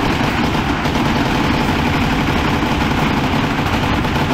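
Sustained fully automatic fire from a CZ Scorpion EVO 3 submachine gun emptying a 50-round drum. The shots run together into one loud, continuous stream, smeared by the echo of an indoor range.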